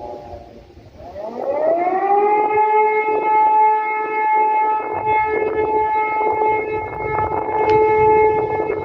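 Civil defence siren starting up for its monthly test: the pitch rises over about a second, then holds a steady, loud wailing tone.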